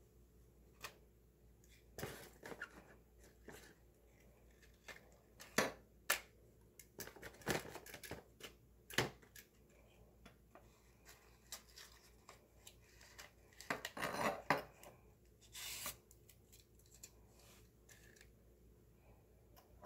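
Metal kitchen tongs clicking and scraping on a tile floor and rattling small paper bins as they grab one and tip it into another: an irregular string of sharp clicks and short scrapes, with a longer clatter past the middle.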